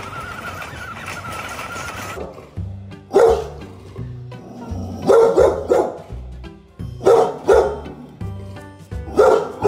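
Dog barking in single or paired deep woofs about every two seconds, over background music with a bass line. A steady high whine fills the first two seconds.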